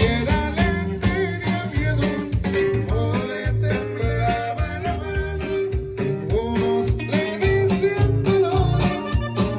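Mexican corrido music: plucked guitars over a steady, shifting bass line.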